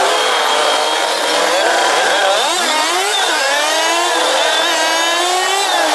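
Auto-rickshaw engine running under a passenger riding in the open cab, its pitch rising and falling as it revs and eases off through traffic.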